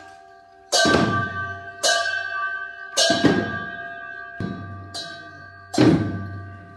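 Cymbals and hand drums accompanying a Bhutanese cham mask dance, struck together about once a second. Each clash rings on with a metallic tone and fades before the next; a few strikes come closer together.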